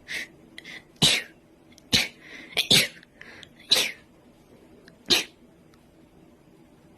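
A young woman sneezing in a rapid series, about seven sharp sneezes over the first five seconds, two of them almost back to back in the middle.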